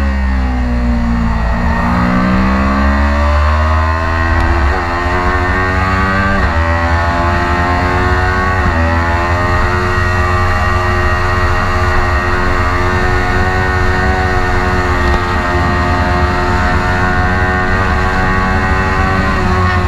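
Kawasaki Ninja 400 parallel-twin engine on track: the revs drop at first, then climb through the gears with three upshifts a couple of seconds apart, hold high and nearly steady, and fall again near the end. Strong wind rumble on the onboard microphone.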